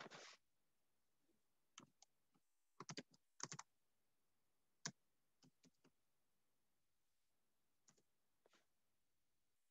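Faint keystrokes on a computer keyboard: short, scattered clicks in small clusters with near silence between.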